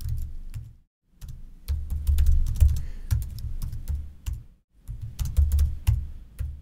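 Typing on a computer keyboard: quick runs of key clicks in three bursts, with two short pauses between them.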